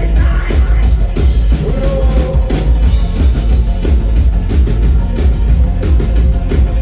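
Live rock band playing loud, bass guitar, drum kit and keyboard together, with a heavy bass line under a steady drum beat.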